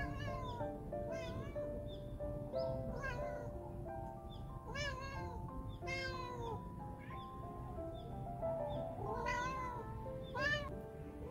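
A black stray mother cat meowing over and over, about eight short calls that rise and fall in pitch, spaced a second or two apart: a mother calling for her lost kittens. Soft background music plays underneath.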